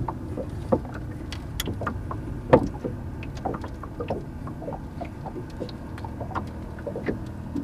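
Light knocks and creaks from a small wooden boat as the angler stands in it working his fly line, over a steady low rumble. One sharper knock about two and a half seconds in.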